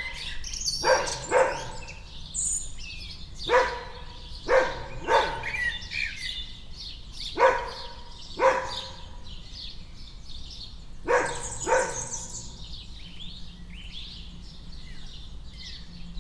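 A dog barking in short runs of one or two barks, about nine barks in all, with birds chirping throughout. The barking stops about twelve seconds in, leaving only the birdsong.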